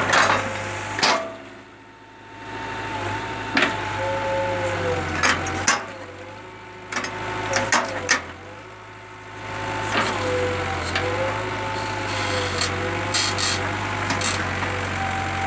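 Backhoe loader's engine running, with a whine that slides up and down in pitch and sharp knocks scattered throughout. The sound drops away briefly twice, about two and nine seconds in.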